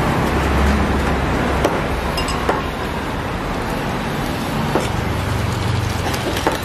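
Steady traffic and street noise, with a few sharp clinks of kitchen utensils and dishes now and then.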